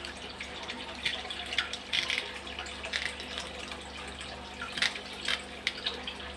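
Water running steadily in an aquarium, with a low pump hum, over scattered short snips and clicks as kitchen shears cut a dead fish into pieces.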